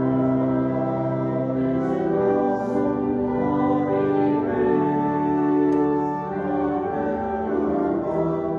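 A hymn played slowly, with held chords that change every second or so.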